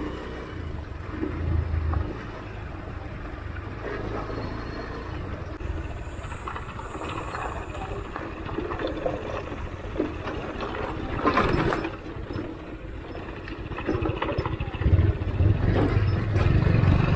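Motorcycle engine running at low revs on a dirt trail, getting louder in the last couple of seconds.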